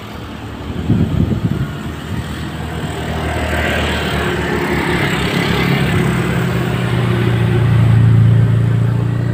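A car approaching from behind and passing close by. Its engine hum builds steadily to its loudest about eight seconds in, then begins to fade.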